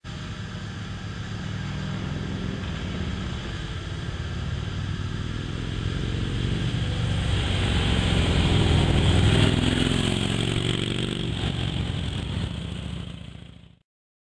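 Motorcycle engine running as the bike comes through a curve toward the listener. It grows louder to a peak about nine seconds in, fades as the bike passes, and cuts off suddenly near the end.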